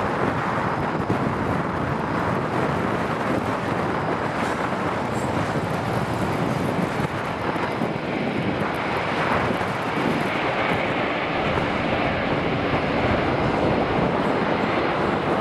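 Boeing 747-400 freighter's four turbofan engines at takeoff thrust during the takeoff roll: a steady, loud jet rumble and hiss, with the higher hiss growing stronger about halfway through.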